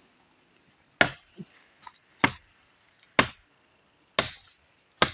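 Five sharp blows on wood, about one a second, as a wooden tent stake is chopped or driven, over the steady high chirring of night insects.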